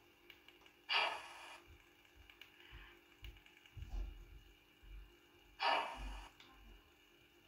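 Two short hisses about five seconds apart, each lasting about half a second, from a model locomotive's sound module, over a faint steady hum.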